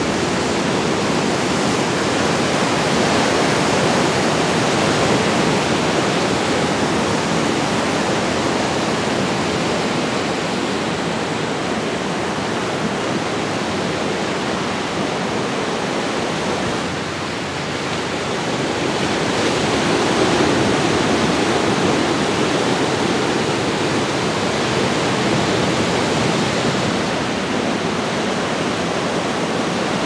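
Ocean surf breaking and washing in a steady rush of white water, swelling a little twice and easing briefly past the middle.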